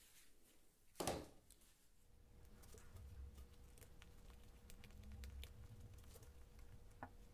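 Near silence with faint handling sounds: a gloved hand screws a threaded wing-knob bolt into a drilled nut, with light scattered metal clicks. There is one brief knock about a second in.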